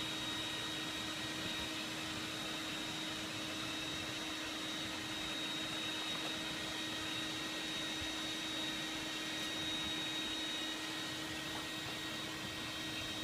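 Small electric blower forcing air into a coal-fired brick furnace, running steadily: an even rush of air with a constant hum and a thin high whine.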